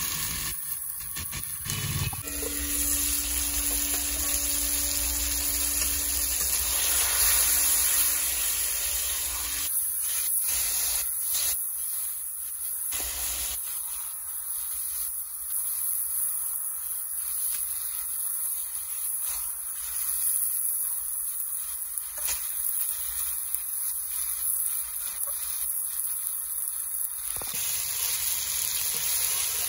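Steady sizzle of meat frying in its spice masala in a cast-iron kadai, with occasional knocks and scrapes as a spatula stirs it.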